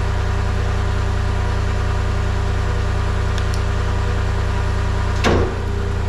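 Tracked skid steer's engine idling steadily, powering a Halverson skid-steer-mounted firewood processor. A brief sharp sound about five seconds in is the loudest moment.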